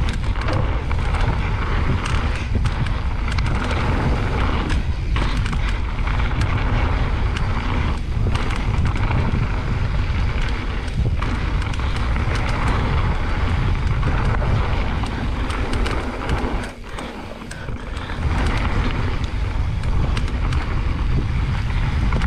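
Mountain bike riding down a dirt trail: wind buffeting the camera's microphone over tyres rolling on dirt, with the bike rattling and knocking over bumps. The noise drops briefly about 17 seconds in.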